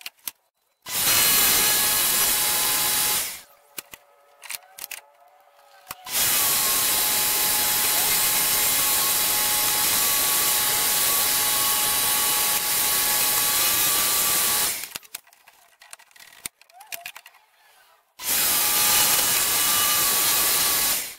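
Jigsaw mounted under a homemade dust- and noise-enclosing table, running in three bursts as wood is fed into the blade: about two and a half seconds, then about nine seconds, then about three seconds. Each burst is a steady whine over the cutting noise and stops abruptly. In the gaps between the bursts there are light clicks of wood being handled.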